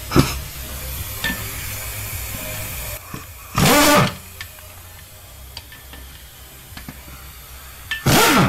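Impact wrench spinning loosened cylinder head bolts out of a Subaru EJ253 head in two short runs of about half a second each, the first about three and a half seconds in and the second near the end, its pitch falling as it lets off.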